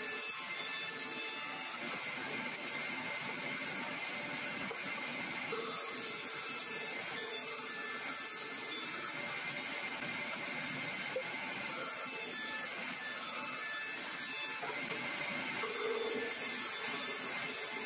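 Bandsaw running steadily while it rips along a thick rough-sawn hardwood board fed by hand against a fence.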